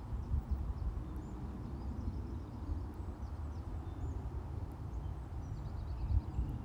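Wind buffeting the microphone in gusts, with faint bird chirps above it, including a quick run of repeated notes about five seconds in.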